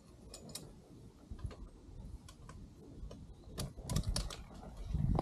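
Irregular small clicks and taps of fishing gear being handled, getting louder toward the end with a few heavier knocks and rustles.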